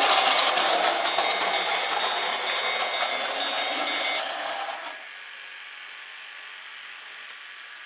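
Model train running along the track, a dense mechanical clatter of its small motor and wheels with a fine rapid clicking and a steady high whine. The whine stops about four seconds in and the clatter cuts off sharply just before five seconds, leaving a quieter steady hiss.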